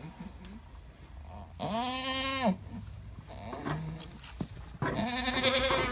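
Alpine goat bleating twice, two long quavering calls about three seconds apart.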